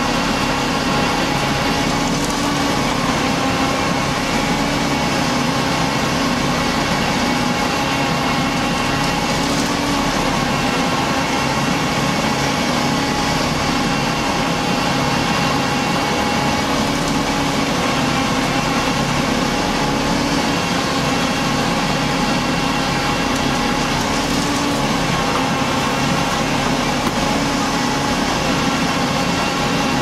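Concrete mixer truck running steadily with its drum turning: a constant diesel engine hum with several steady tones that do not change.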